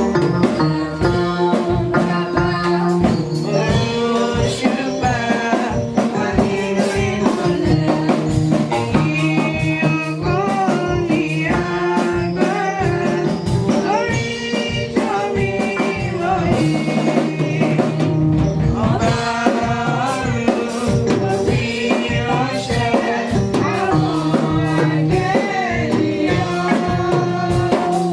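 Church worship music: voices singing over a steady beat of drums and tambourine.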